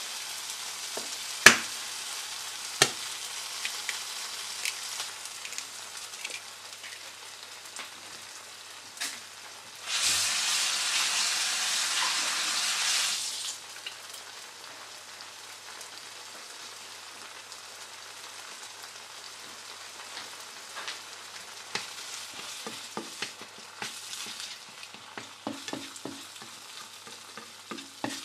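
Chopped tomatoes sizzling in oil in a nonstick frying pan. Two sharp knocks come about one and a half and three seconds in as an egg is cracked on the pan, then about ten seconds in the sizzle turns much louder for some three seconds as the raw egg hits the hot oil. Near the end a plastic spatula scrapes and stirs the egg through the tomatoes with small clicks.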